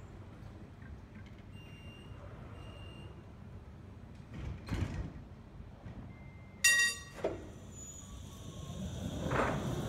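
Low-floor electric tram standing at a stop with its doors open and its equipment humming low. There are two faint short beeps about two and three seconds in, a loud short ringing chime about two-thirds of the way through, and near the end a rising rumble as the tram begins to pull away.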